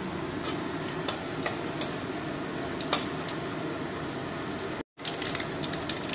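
Cumin and mustard seeds frying in hot oil for a tadka: a steady sizzle with scattered sharp pops and crackles. The sound cuts out for an instant about five seconds in.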